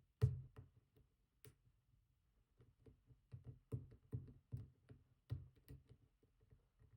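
Light, irregular metallic clicks and taps of a lock pick working the pin stack of a GEGE pExtra+ oval cylinder, busiest in the second half. This is the picker trying to set the last serrated telescope pins in positions 2 and 3.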